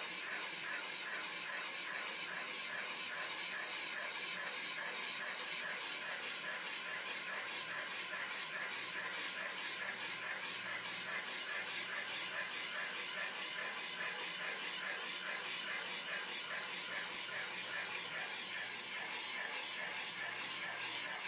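Carbide boring cutter on a valve-seat boring machine cutting out a beryllium exhaust valve seat: a steady metal-cutting chatter with a fine, rapid, even pulse as chips curl off the seat.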